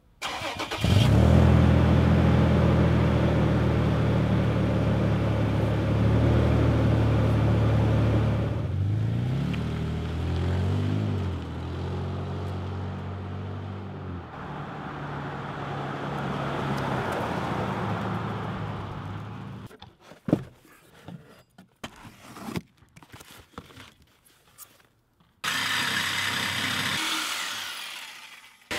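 2011 Toyota Tacoma on its stock exhaust: the engine starts about a second in, idles steadily, and is revved a few times, rising and falling, about nine to eleven seconds in. The truck then drives off and its sound fades out. Near the end come a few scattered knocks and a short whirr of a power tool.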